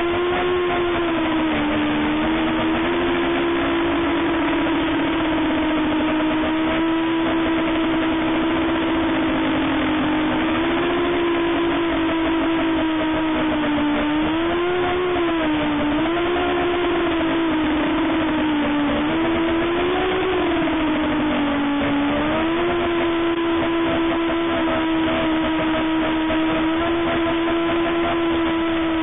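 Brushless motors and propellers of an x210 racing quadcopter heard through its own onboard camera: a continuous droning whine at a steady pitch that rises and dips several times in the middle as the throttle changes.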